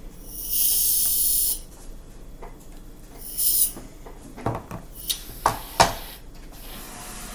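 Aerosol shaving cream can spraying foam: a hiss of about a second, then a shorter second burst, followed by a few sharp knocks.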